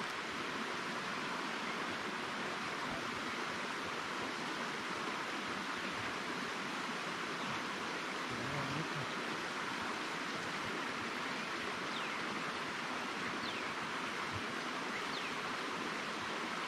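Steady, even outdoor background hiss, with a few faint high chirps in the second half.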